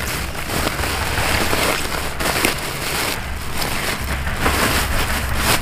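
Woven polypropylene sack rustling and crinkling loudly as hands stuff cauliflower heads and leaves into it.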